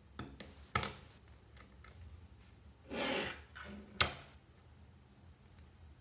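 Blocks of small magnetic balls being pressed and snapped together: a few sharp clicks in the first second, a short rattling scrape about three seconds in as the balls slide against each other, and one loud sharp click at about four seconds.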